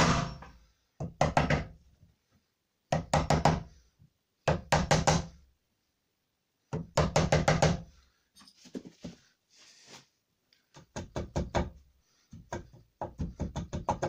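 A wood chisel being struck in short runs of quick, light blows, chopping out a shallow recess for a door catch's keep in a wooden door frame, with a brief quieter scraping spell of paring about halfway through.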